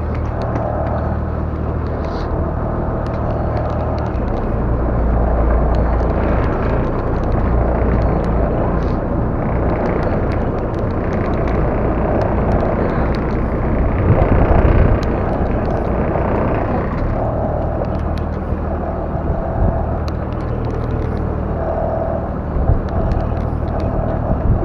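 A boat's engine running steadily, with the hiss of water and wind around the hull.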